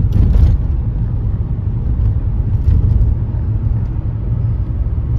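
Steady low rumble of a car's tyres and engine heard from inside the moving car's cabin at road speed, with a short scuffing noise at the very start.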